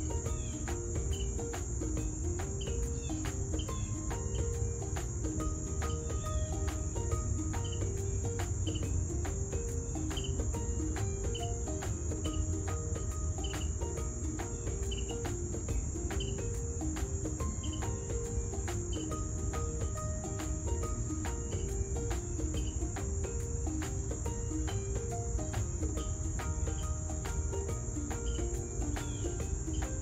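A steady, high-pitched insect chorus, like crickets, with soft background music of short melodic notes beneath it.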